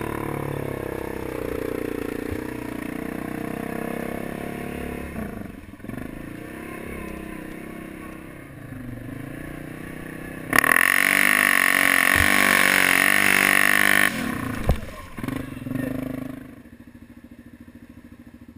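A modded Yamaha Grizzly 700 ATV's single-cylinder engine running as it drives through mud and water, with a much louder stretch of about three and a half seconds past the middle that cuts off abruptly, then settling lower near the end.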